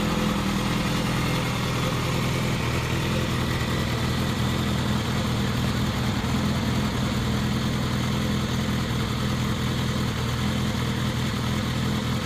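Yamaha XJR400 air-cooled inline-four idling steadily through a WR'S aftermarket silencer.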